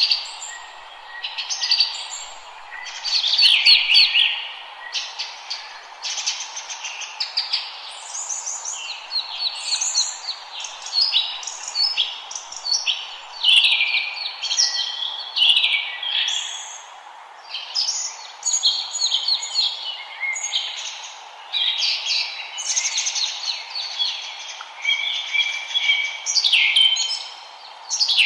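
Several forest birds singing together, a dense run of overlapping chirps, twitters and quick trills, over a steady low background hiss.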